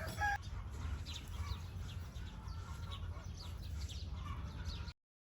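Farmyard poultry and small birds chirping and clucking faintly over a steady low rumble; the sound cuts off abruptly near the end.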